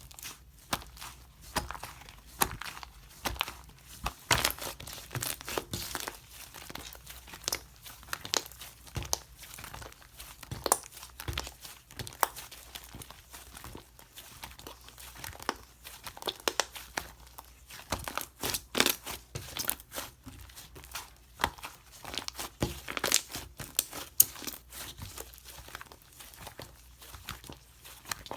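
Slime being squeezed and pressed by hand, giving a dense run of irregular sharp clicks and pops, several a second.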